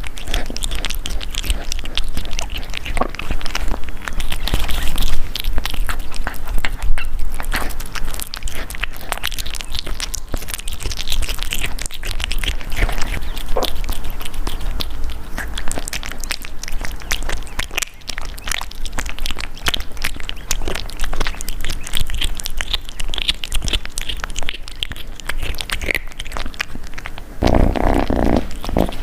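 Kitten eating close to the microphone: many quick chewing and mouth clicks over a steady low purr. A louder, fuller stretch comes near the end.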